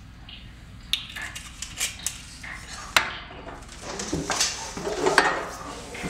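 Scattered knocks and clinks as a glass whiskey bottle and a banjo are handled around a porcelain clawfoot bathtub, with a sharp clink about three seconds in and a cluster of knocks and rattles between four and five and a half seconds.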